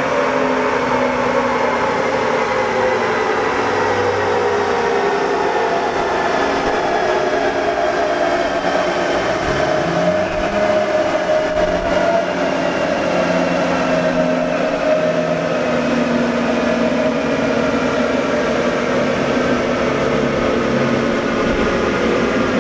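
Large dyno-cell cooling blower running loudly, with a whine of several tones that falls slowly and steadily in pitch as the chassis dyno rollers and the truck's drivetrain wind down after a pull.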